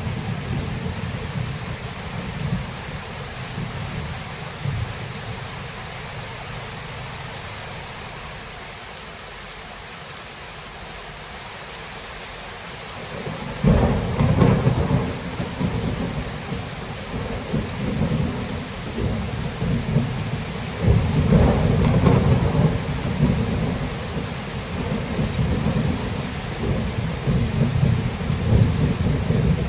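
Thunderstorm: steady rain falling, with thunder rumbling low. About halfway through a thunderclap breaks in suddenly and rolls on, and a second swell of rolling thunder follows a few seconds later.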